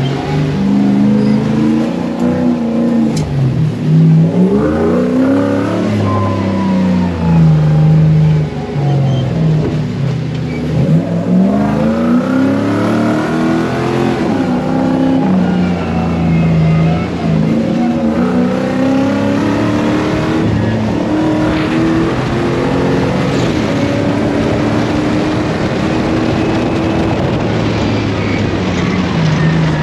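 Off-road buggy engine revving hard as it is driven, its pitch climbing and then dropping sharply again every few seconds as the throttle opens and closes.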